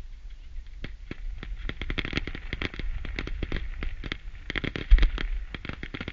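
Fireworks going off in a dense stream of sharp pops and crackles that thickens about a second in, with one louder bang about five seconds in.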